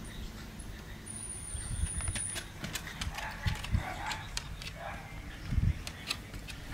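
A border collie nosing a tin can around on a wooden deck: scattered sharp clicks and knocks, with a few soft thumps about halfway through and again near the end.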